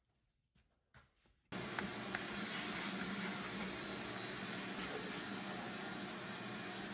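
Vacuum cleaner running steadily with a low hum, its wand sucking dust and debris out of the burner compartment of an old gas wall heater. It starts abruptly about a second and a half in, after near silence.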